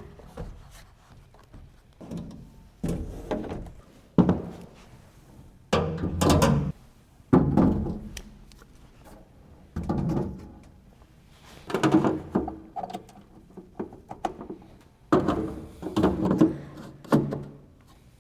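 Strongway tool cabinet drawers and tools being handled as the cabinet is stocked: about a dozen irregular thunks and clunks, with short sliding and scraping sounds between them.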